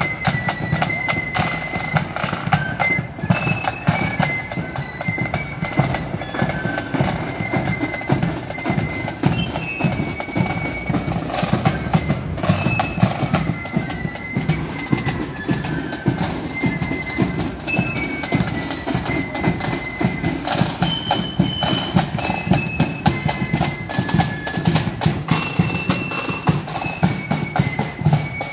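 Marching flute band playing: a tune on flutes carried over rolling snare drums and a steady bass drum beat.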